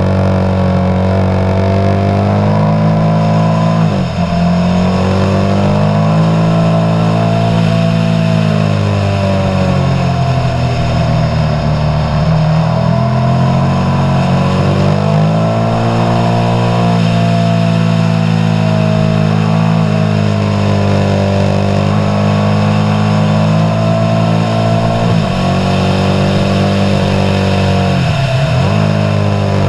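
Motorcycle engine running on the road, its pitch rising and falling with the throttle, with short drops in revs about four seconds in and twice near the end, typical of gear changes.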